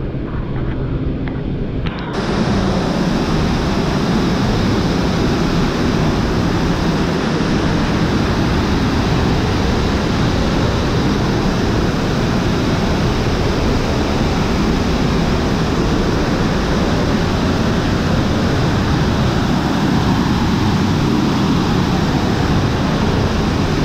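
Waterfall pouring down in a loud, steady rush of falling water. It comes in abruptly about two seconds in, after a quieter, duller stretch.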